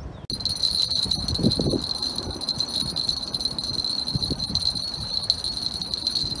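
Wind rumbling on the microphone, with a steady high-pitched ringing tone over it from about a third of a second in.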